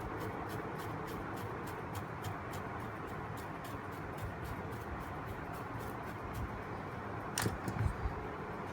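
Quick, even scrubbing strokes of a small brush cleaning old thermal paste off a graphics card's heatsink and GPU, about four strokes a second, over a steady background hiss. A sharp knock and a couple of thumps come near the end as the card or a tool is handled.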